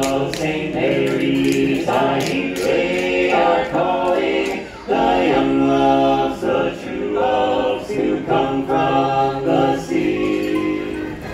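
Male barbershop quartet singing a cappella in close four-part harmony, holding long chords with a brief break about halfway through.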